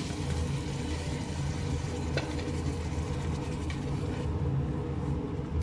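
Meat and tomato juice sizzling in a hot steel pot while a wooden spoon stirs, with a couple of light knocks of the spoon against the pot; the hiss dies down about four seconds in. A steady low hum runs underneath throughout.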